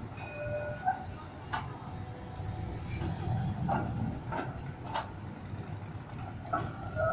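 Melbourne trams rolling over the tracks and a curved junction: a steady low rumble with a handful of sharp clicks and knocks as the wheels run over the rail joints and points.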